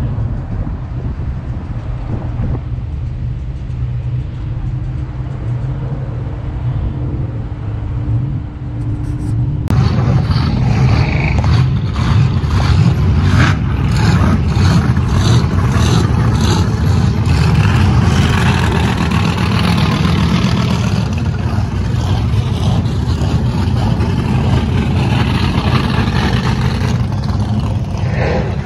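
Car engines with loud exhausts: a steady low idle at first, then, after a sudden jump about a third of the way in, much louder engines revving and driving past, with a string of sharp pops soon after.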